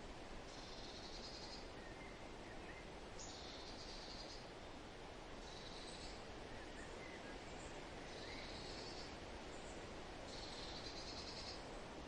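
A songbird repeating a fast trilled phrase about a second long, five times at roughly even intervals, with a few faint short chirps from another bird, over a steady rush of wind in the leaves.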